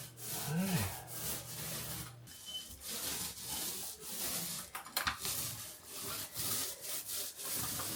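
Hand tool worked over a drywall wall in repeated back-and-forth rubbing strokes, about one to two a second in an uneven rhythm. A steady low hum underneath stops about two seconds in.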